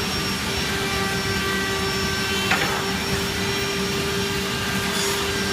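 Wide belt sander running steadily, a constant machine hum and whir with a brief click about halfway through.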